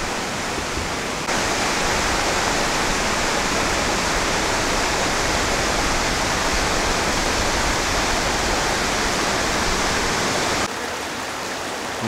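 Steady rush of a waterfall pouring into a pool, an even noise without pauses. It jumps abruptly louder about a second in and drops back abruptly near the end.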